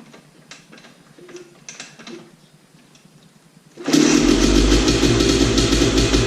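Faint handling ticks, then about four seconds in a Beta Xtrainer two-stroke dirt bike engine starts suddenly and runs loudly, tested after a new kill switch was wired in.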